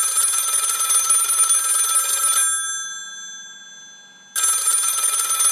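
Telephone bell ringing twice. The first ring lasts about two and a half seconds and dies away, and the second starts about four seconds in.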